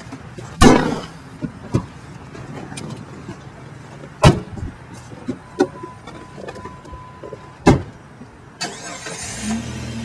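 Three loud, sharp thumps a few seconds apart, with lighter knocks between, then a car engine starting near the end.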